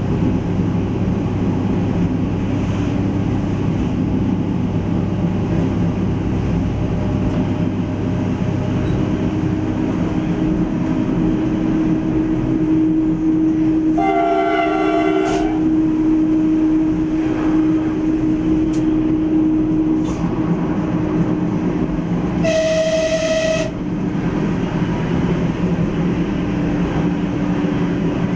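ATR 220 diesel railcar heard from the driver's cab, running along the line with steady engine and rail noise; a steady hum joins about a third of the way through. The horn sounds twice: a chord blast of about a second and a half near the middle, and a shorter single-note blast near the end.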